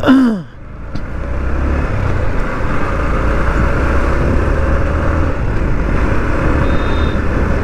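Yamaha MT-15 motorcycle riding along with a steady engine and road rumble, dipping briefly near the start and then building back up as it picks up speed.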